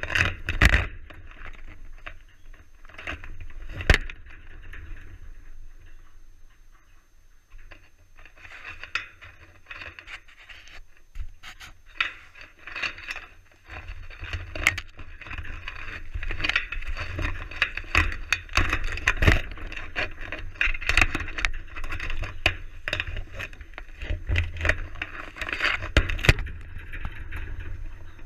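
Close scraping, clicking and rustling on and around a GoPro camera as an Arctic gray wolf noses at it, in irregular bursts with sharp ticks, quieter for a few seconds early on and busier through the second half.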